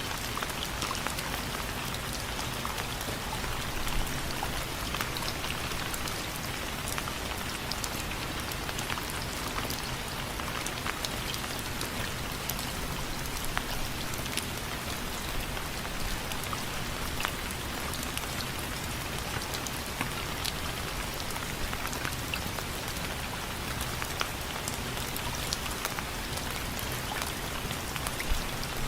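Steady rain with scattered drops tapping on window frames.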